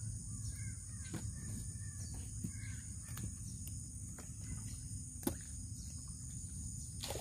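Steady high insect drone of a flooded forest over a low steady rumble, with a few faint chirps and several sharp clicks, the loudest about five seconds in.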